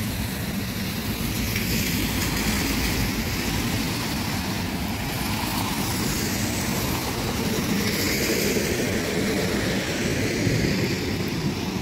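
Heavy rain and water running over a flooded street, with cars swishing through the water on the wet road; the passing traffic swells about two seconds in and again around eight seconds.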